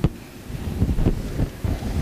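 Chalk tapping and scraping against a blackboard during writing: a sharp tap at the start, then a few softer taps about a second in, over a low rumbling wind-like noise on the microphone.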